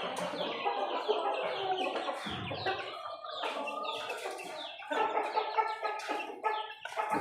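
A flock of Aseel chickens clucking, with many calls overlapping one another continuously and growing a little louder about five seconds in.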